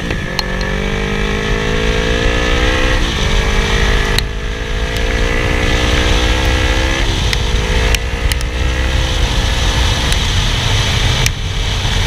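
Yamaha R3 motorcycle engine accelerating through the gears, its pitch climbing steadily in each gear and dropping sharply at upshifts about three and seven seconds in, over a steady rush of wind and road noise.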